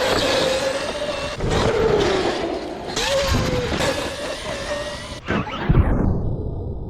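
Whine of a high-power electric RC monster truck motor, rising and falling with throttle over rushing tyre and ground noise, ending in a falling whoosh about five seconds in.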